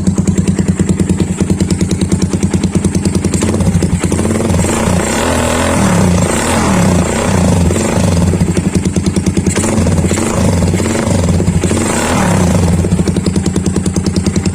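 Suzuki Raider 150 Carb motorcycle engine, fitted with a replica Daeng Sai 4 carburetor, idling with a fast even pulse. From about four seconds in, the throttle is blipped over and over, then it settles back to idle near the end.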